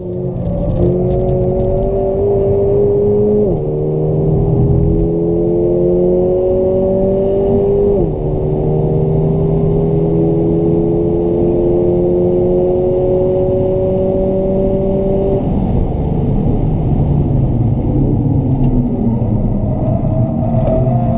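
Mercedes-AMG A 45's turbocharged 2.0-litre four-cylinder at full throttle, heard from inside the cabin: the pitch climbs steadily through the revs with two quick upshifts where it drops sharply, at about three and a half and eight seconds in, then a long rising pull until the driver lifts off about fifteen seconds in and the note falls as the car slows.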